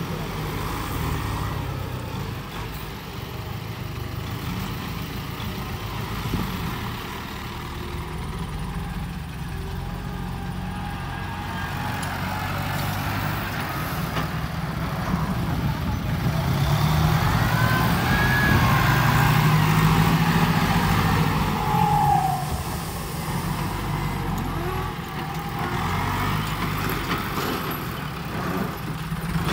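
Heavy diesel engines running steadily: a New Holland tractor and an Isuzu dump truck. The engine grows louder for a few seconds past the middle as the truck raises its tipper bed to dump its load of soil.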